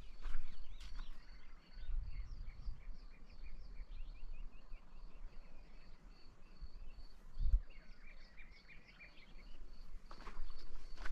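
Small birds chirping and twittering throughout over a steady thin high whine, with a few footsteps near the start and again near the end, and a couple of low thumps in between.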